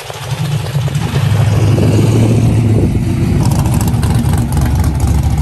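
Loud exhaust of a lowered classic car pulling away from a crosswalk and driving past close by. Its low engine note swells over the first second, then holds loud as it passes.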